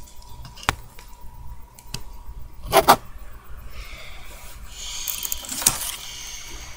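Handling noise from a plastic cup moved close to the microphone: a single click under a second in, a cluster of knocks and rattles about three seconds in, then a scraping rustle with another knock about five seconds in.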